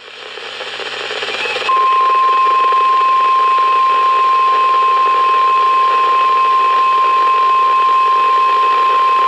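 Weather-radio reception hiss rising, then about a second and a half in the NOAA Weather Radio 1050 Hz warning alert tone starts: one loud, steady tone held over the hiss. It signals that a warning broadcast, here a severe thunderstorm warning, is about to follow.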